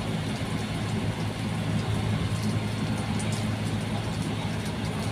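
Heavy engines running steadily with a low, even hum.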